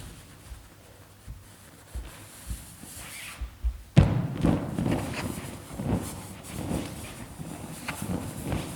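Large latex balloons being sat and bounced on: a few soft low thuds, then a sharp loud hit about four seconds in, followed by a run of repeated thumps and rubber rubbing.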